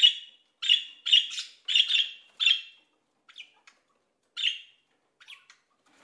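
Green parakeet calling: a quick run of about seven short, harsh squawks over the first three seconds, then a few fainter calls with one more squawk past the middle.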